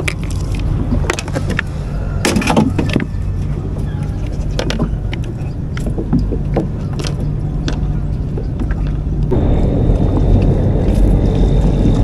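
A motor's steady low hum, with scattered clicks and knocks from handling things in a plastic boat. About nine seconds in, a louder rushing noise joins, with a faint steady high whine.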